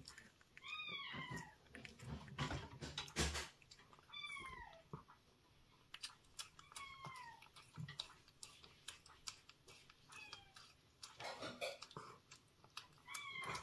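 A cat meowing in about five short calls, each falling in pitch, spaced a few seconds apart, between the small wet clicks of a cat eating soft canned food from a bowl.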